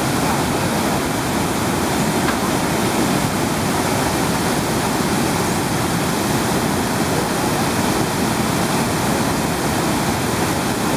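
Iguazú Falls' many cascades pouring into the gorge: a steady, dense rush of falling water with a deep low rumble, unchanging throughout.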